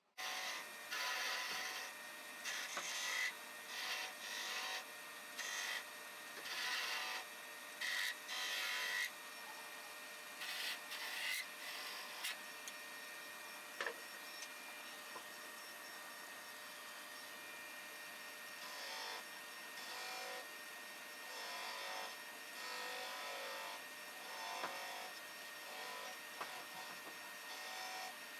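A tool working wood in repeated short strokes, dense and strong for the first nine seconds or so and then sparser and softer, over a steady high whine.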